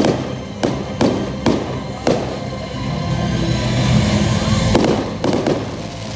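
Fireworks going off: a quick run of sharp bangs, about two a second, then a denser stretch of crackling, and a few more bangs near the end. Music plays underneath.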